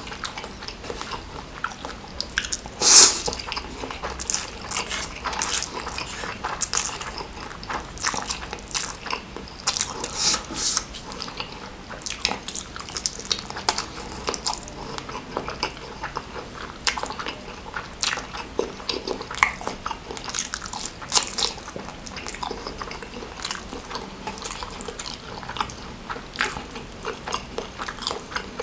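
Close-miked eating: a steady run of short, wet chewing and biting sounds from a person eating spicy noodles and meatballs, with one louder, longer sound about three seconds in.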